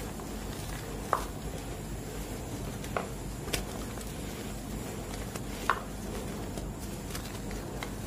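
Hands squeezing and crumbling blocks of dyed gym chalk into loose powder: soft, steady crumbling with a few sharper crunches scattered through.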